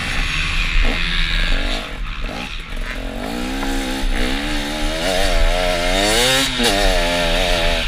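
Motocross bike engine under hard throttle, its pitch climbing and dropping several times from about three seconds in as the rider opens and closes the throttle. Wind rushes over the helmet-mounted microphone throughout.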